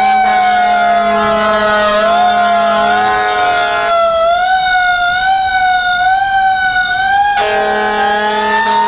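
Fire truck siren wailing continuously, its pitch wavering slowly up and down over a steady lower tone. The lower tone drops out for a few seconds in the middle, and the siren's pitch starts to rise near the end.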